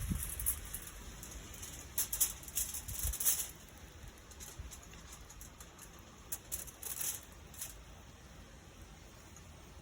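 Irregular high-pitched crackling and sizzling from cooking over a campfire, busiest in the first three and a half seconds and then thinning to scattered crackles.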